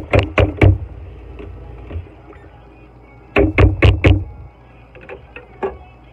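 Fine-mesh metal strainer rapped against the sink to knock the water out, in quick knocks about four a second: a few right at the start, four more a little past the middle, then lighter taps near the end. Tap water runs at first.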